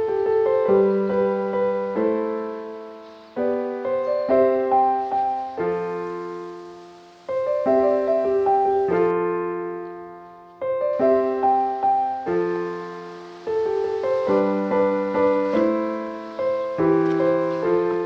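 Background piano music: a gentle melody of struck notes that ring and fade away, in phrases a few seconds long.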